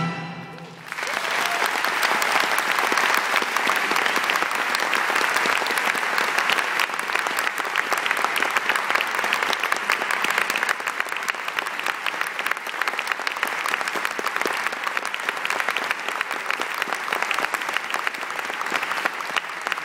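Theatre audience applauding. The music cuts off at the start and the clapping swells in about a second later, then keeps on steadily, easing a little near the end.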